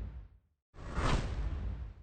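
Whoosh transition sound effects: one fades out about half a second in, and after a short gap another sweeps in, swells and fades away.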